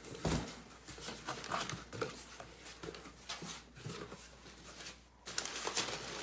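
Cardboard box being handled: the outer box lifted off and the inner box's flaps pulled open, a run of short scrapes and knocks. About five seconds in, kraft packing paper starts crinkling steadily as a hand digs into it.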